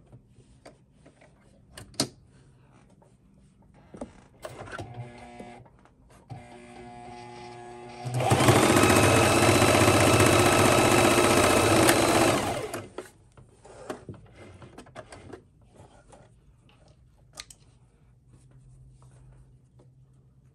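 Electric Singer sewing machine stitching a seam through cotton fabric. It runs slowly at first, then speeds up and runs steadily and loudly for about four seconds before stopping. A few small clicks follow as the threads are cut with snips.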